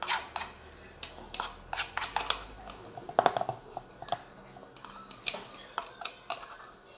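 Irregular light taps and clicks of a utensil knocking and scraping against plastic as chopped garlic paste is spooned into a plastic storage container, the sharpest knock about three seconds in.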